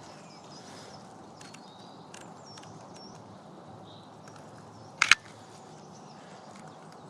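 Canon EOS R5 shutter firing once about five seconds in, a quick double click. Faint bird chirps come and go over a steady outdoor background.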